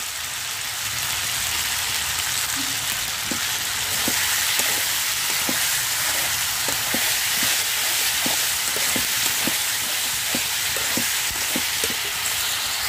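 Vegetables sizzling as they fry in hot oil in a black iron karahi. From a few seconds in, a steel spatula scrapes and knocks against the pan about twice a second as the food is stirred.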